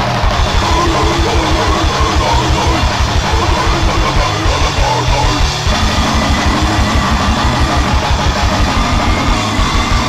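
Grindcore music: heavily distorted guitars over very fast, rapid-fire drumming, with the riff changing a little past halfway through.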